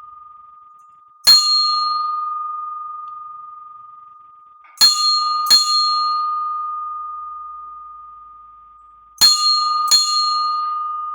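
A single high-pitched bell struck five times: once, then twice in quick succession, then twice again. Each stroke's bright overtones die away quickly, leaving one steady hum that fades slowly and is still ringing when the next stroke comes.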